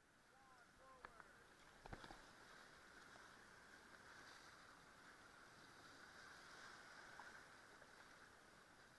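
Faint, steady rush of whitewater rapids splashing along an inflatable raft, with two knocks about one and two seconds in.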